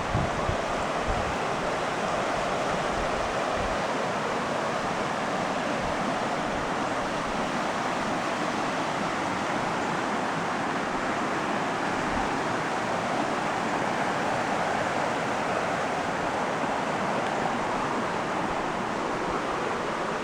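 Steady rushing of flowing river water, an even hiss that holds at one level throughout, with a few faint low thumps.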